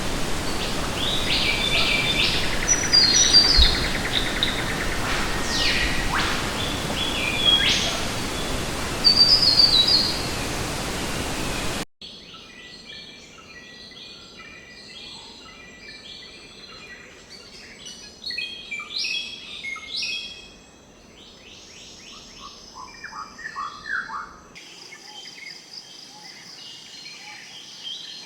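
Assorted birds chirping, whistling and calling over a steady hiss of background noise. About 12 seconds in, the sound cuts abruptly to a quieter recording of other bird calls, with a series of short descending notes around 19 to 20 seconds.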